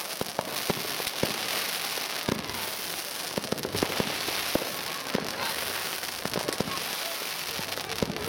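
Crackling ground fireworks going off: many sharp cracks and pops at an irregular rapid pace over a steady fizzing hiss of burning sparks.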